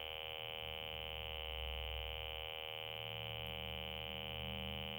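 A glitching 2001 re-release Furby's speaker, stuck on a steady, unchanging high-pitched electronic tone with a buzzy drone beneath it. The noise is a sign that the toy's sound chip has hung, which the owner suspects is a crash caused by opening and shutting the battery compartment.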